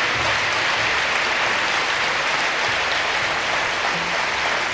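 A large crowd applauding steadily, many hands clapping at once in a big hall.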